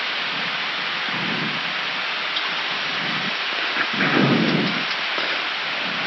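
Steady rushing flight-deck noise of an Airbus A319 cruising at flight level 370, the constant hiss of air around the cockpit. A brief, low, muffled swell rises about four seconds in.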